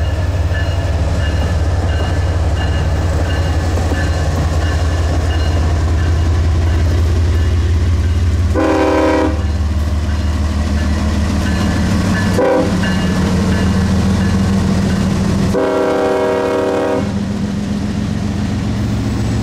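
CSX freight train passing close by: the lead diesel locomotive's engine runs loudly as it goes past, and then the freight cars roll by. The horn sounds three times: a short blast about nine seconds in, a brief toot around twelve seconds, and a longer blast around sixteen seconds.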